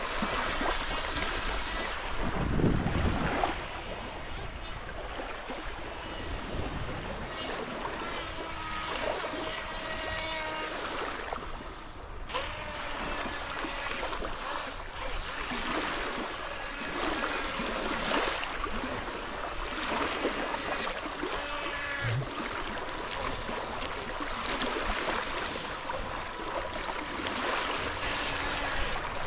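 Small waves lapping and washing on a shallow pebbly lakeshore.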